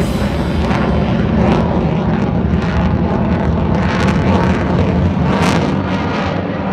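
F-16 fighter jet flying a display pass, its jet engine noise loud and steady throughout.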